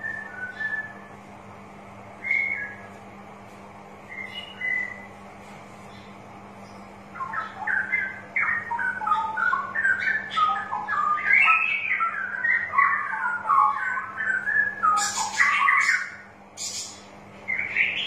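Straw-headed bulbul (cucak rowo) singing: a few short whistled notes, then, about seven seconds in, a long bubbling run of rich warbled notes lasting around nine seconds, ending in a few sharp high notes.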